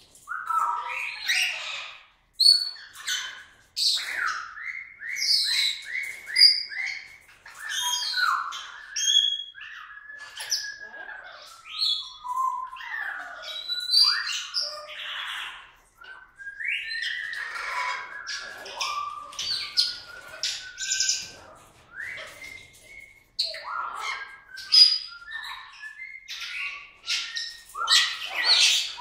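Goffin's cockatoo calling in a long, varied string of chirps, gliding whistles and harsh squawks, with a quick run of repeated short notes about four to six seconds in.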